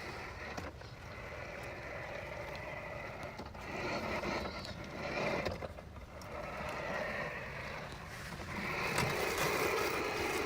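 Redkey MGC1000 robot lawn mower running as it mows, its cutting blade spinning with a steady motor hum over a low rumble. The sound swells louder about four seconds in and again near the end.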